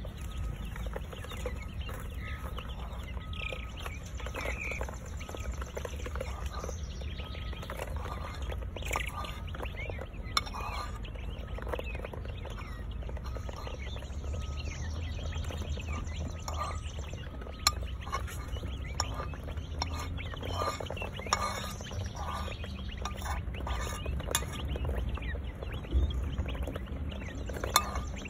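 Young northern bobwhite quail calling with short chirps and peeps as they feed, with a few sharp clicks scattered through.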